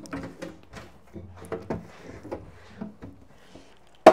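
Light knocking and clattering of items being handled, ending in one sharp loud bang.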